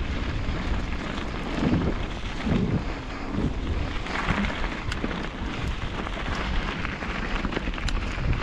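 Point-of-view mountain-bike descent on a rough dirt trail: wind rumbling on the camera microphone over tyres crunching across dirt and stones, with a few sharp rattles from the bike.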